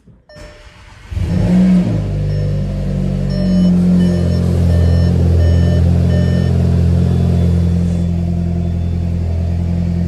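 The Jetta GLI's 2.0-litre turbocharged four-cylinder is started about a second in, flares briefly in revs, then settles into a steady idle. For a few seconds after it catches, a dashboard warning chime beeps about twice a second.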